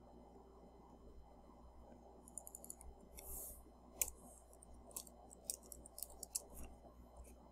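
Computer mouse clicks and keyboard keystrokes, a scattering of short, sharp taps from about two seconds in, over a faint low hum.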